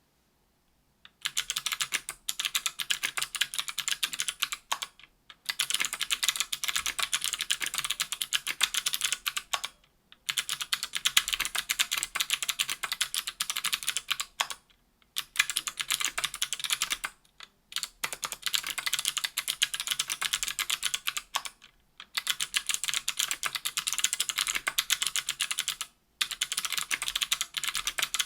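Typing on a 60% keyboard with stock NK_ Sherbet 70 g clicky switches in an aluminium case and plate, with GMK keycaps. It starts about a second in: a dense stream of sharp, crisp clicks in runs of several seconds, broken by brief pauses.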